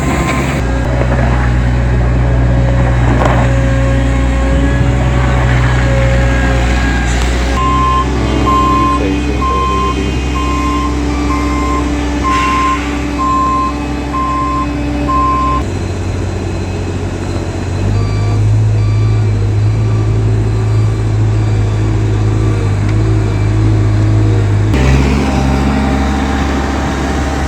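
Bobcat skid steer loader's diesel engine running steadily under work, its note shifting several times. The reverse alarm beeps about once a second for roughly eight seconds in the middle.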